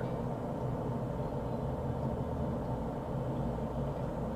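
Steady low hum with faint hiss: background noise of the recording room or microphone.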